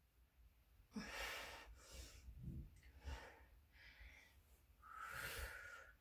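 A woman's faint breathing as she exercises: several breathy breaths, the longest near the end.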